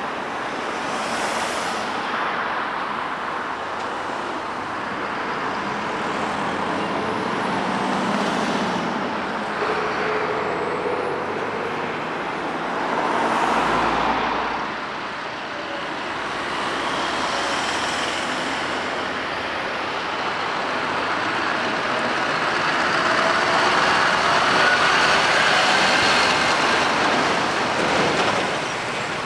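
Diesel lorries and other road traffic passing slowly, engine and tyre noise swelling and fading as each vehicle goes by. The loudest pass, a livestock transporter going by close, comes in the last few seconds.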